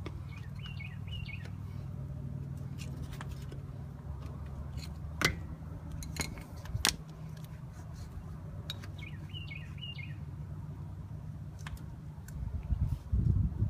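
A few sharp metallic clicks as parts of a Jeep CJ7's four-wheel-drive front hub are worked loose by hand, the loudest about five and seven seconds in, over a steady low hum. Birds chirp briefly twice, and louder rustling handling noise comes in near the end.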